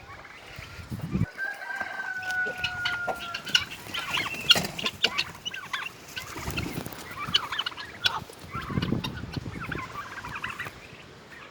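Mixed backyard poultry, chickens and meat turkeys, clucking and calling, with one long drawn-out call starting about a second in and lasting about two seconds.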